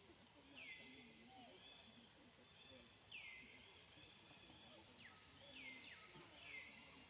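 Faint outdoor background with a high animal call, repeated about four times, each one sweeping quickly down and then holding briefly.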